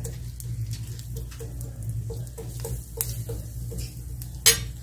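Sliced onion frying gently in oil in a clay cazuela, sizzling with small irregular crackling pops while a metal spoon stirs it. One sharp knock near the end.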